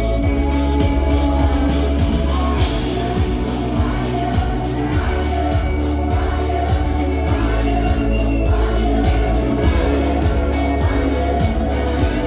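Live band music at full volume: a steady drum beat and heavy bass under sustained synth-organ chords, with a sung vocal line.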